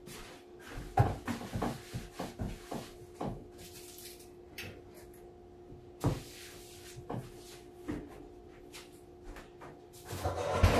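Kitchen handling noise: a quick run of knocks and clunks about one to three seconds in, then single knocks now and then, as of cupboard doors and things being set down, over a faint steady hum.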